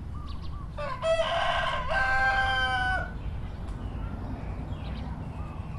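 A rooster crowing once: a call of about two seconds that ends on a long held note, over a low steady background rumble.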